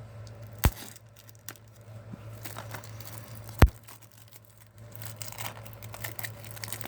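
Plastic wrapping on a DVD case being torn and crinkled, with two sharp clicks, a louder one about three and a half seconds in, over a low steady hum.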